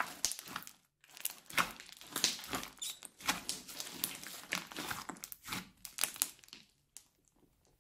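Crunchy slime studded with small foam beads being squeezed, stretched and pressed by hand, giving dense crackling with a short pause about a second in; the crackling stops about seven seconds in.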